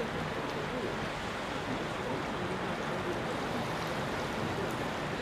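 Sea surf washing steadily over shore rocks, an even rush of water noise.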